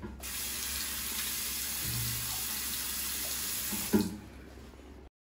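Water running from a bathroom sink tap into the basin: it is turned on just after the start and shut off about four seconds in, with a short knock as it stops.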